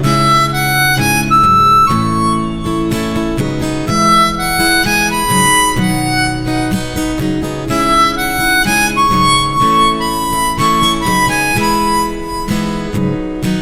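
Harmonica playing a slow folk melody over acoustic guitar strumming chords.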